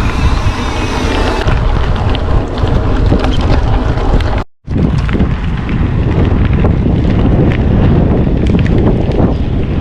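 Strong wind buffeting the microphone, a loud, steady rumble that cuts out for a split second about halfway through.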